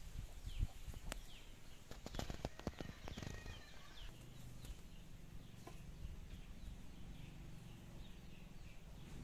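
Footsteps crunching on a gravelly dirt path, with rustling, as a cluster of sharp clicks over the first three seconds. Throughout, a bird calls in short falling chirps repeated about twice a second.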